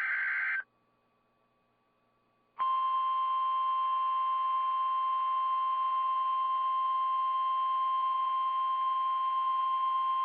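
Emergency Alert System signal over a radio broadcast. The last short screeching burst of the digital SAME data header comes in the first half-second, followed by a brief silence. About two and a half seconds in, the long steady EAS attention tone starts and holds unbroken, announcing a tornado warning.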